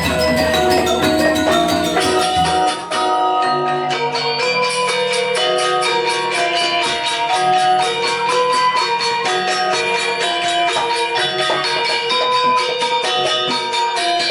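Music with tuned mallet percussion playing a melody over a quick, steady tapping beat; the sound changes abruptly about three seconds in.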